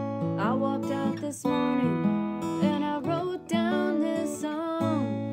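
Alvarez acoustic guitar played in a gentle folk pattern, with a woman singing over it.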